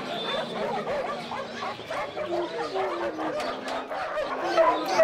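Caged puppies yipping and whining, many short high cries overlapping.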